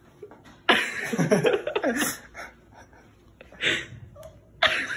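Young men laughing: one long burst of laughter about a second in, then two short breathy bursts near the end.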